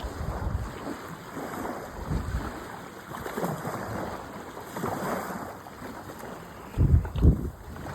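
Wind buffeting a phone microphone over water washing at the shore, with two loud low thumps close together near the end.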